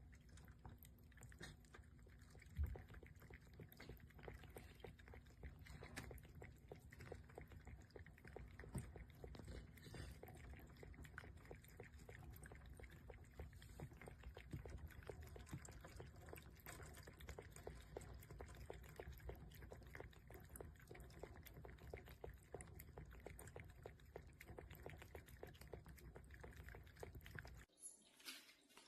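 Faint cat lapping water from a stainless steel pet water fountain: a long, quick run of small wet clicks over trickling water. It cuts off suddenly about a second before the end.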